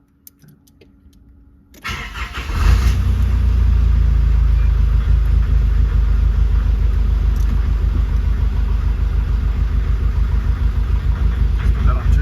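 Car engine started about two seconds in, catching quickly, then idling steadily with a low, even sound.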